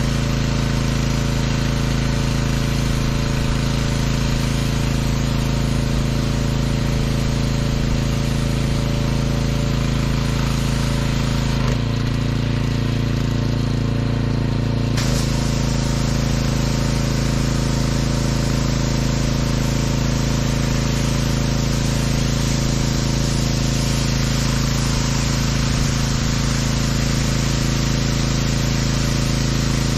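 Gas-engine pressure washer running steadily, with the hiss of its spray wand rinsing down a box truck. About twelve seconds in the spray stops for roughly three seconds and the engine note changes, then the spraying starts again.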